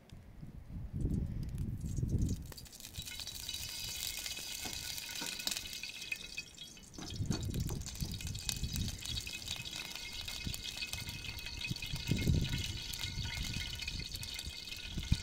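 Small wood-burning stove with a pan on top, giving a steady hiss with fine crackling that sets in a few seconds in, as sticks are fed into the firebox. Low dull rumbles come and go a few times.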